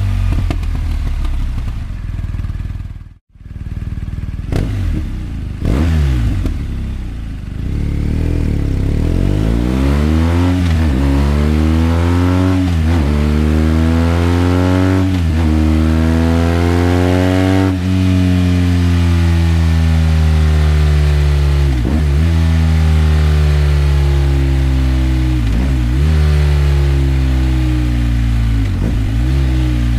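BMW R 1250 GS Adventure's 1254 cc boxer-twin engine running through an HP Sport silencer. The exhaust note climbs for several seconds, then falls slowly, with short dips along the way. The sound cuts out briefly about three seconds in.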